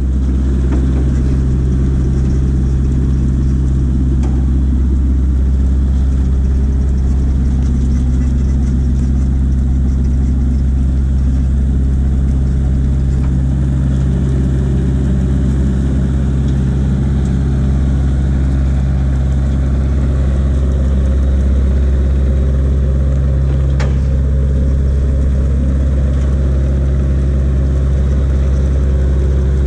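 Heavy truck diesel engine running steadily, a low even drone with no change in speed. A single sharp click about three-quarters of the way through.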